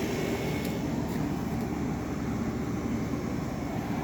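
An air conditioner running, giving a steady, even mechanical drone.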